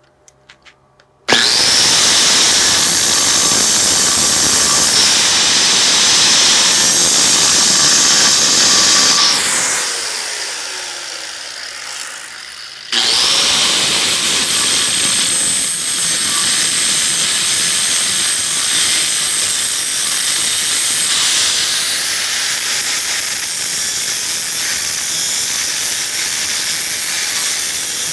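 DeWalt angle grinder switched on after a few light clicks, grinding down the tack welds on a steel pipe. About ten seconds in it is let off and winds down with a falling whine, then is switched on again a few seconds later and keeps grinding.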